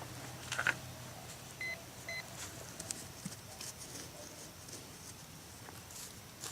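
Two short, identical electronic beeps from a metal detector, about half a second apart, as a dug hole is checked for more metal. Faint scattered clicks and rustling of handling in the soil come before and after.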